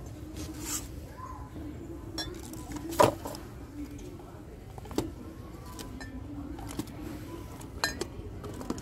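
Ceramic mugs clinking against each other as they are handled, with a few sharp clinks (the loudest about three seconds in) over a steady low hum.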